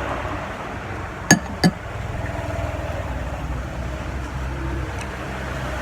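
Road traffic passing close by, a vehicle engine's steady low rumble, with two sharp clicks about a third of a second apart a little over a second in.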